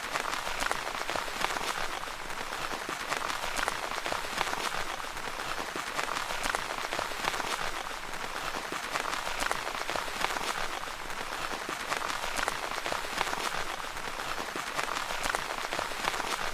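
Steady rain falling on a tent's fabric, a dense even patter of many fine drop ticks.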